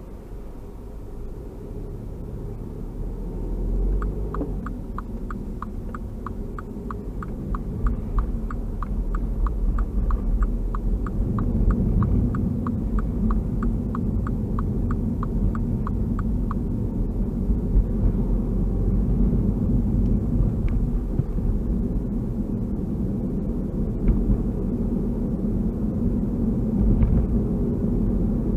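Steady low rumble of road and engine noise inside a moving car, growing louder about eleven seconds in. From about four seconds in to about sixteen seconds in, a turn-signal indicator ticks rapidly, about three ticks a second, as the car makes a turn at an intersection.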